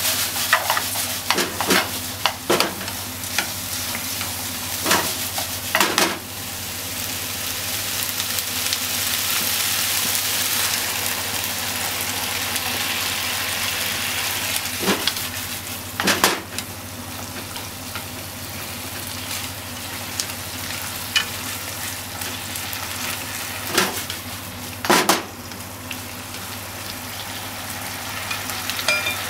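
Pork belly, okra and onion sizzling steadily in a frying pan, stir-fried with wooden chopsticks that knock and scrape against the pan now and then, several times in the first few seconds and a few more later.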